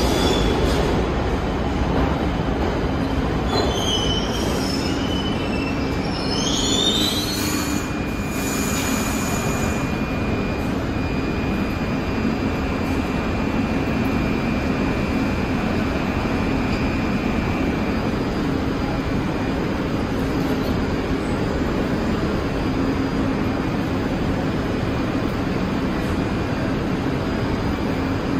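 New York City subway train running on the IRT Lexington Avenue line under a steady low running noise. A few seconds in, its wheels squeal in high, wavering pitches for several seconds, followed by a steady high whine lasting about ten seconds.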